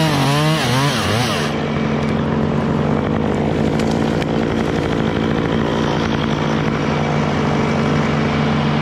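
Stihl chainsaw winding down from high revs and dying away about a second and a half in, over the steady drone of an engine running on the ground below.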